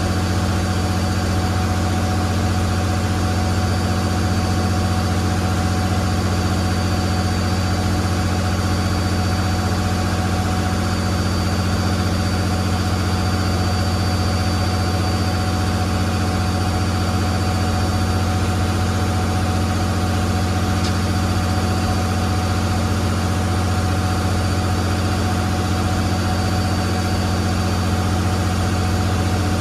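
Riverboat engine running steadily under way: a constant low drone that never changes.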